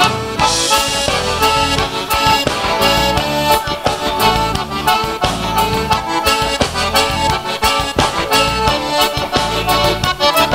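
Live band playing an instrumental introduction in southern Brazilian gaúcho style: two accordions lead the tune over electric bass, electric guitar and a drum kit keeping a steady beat.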